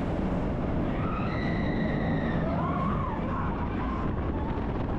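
Expedition Everest roller coaster train rumbling fast along its steel track, heard from a rider's seat. High wavering tones rise and fall over it around the middle.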